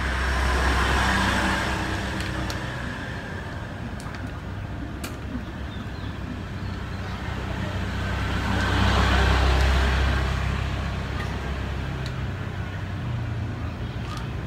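Road traffic going by: a steady low engine rumble that swells and fades twice, as two vehicles pass, with a few faint clicks between.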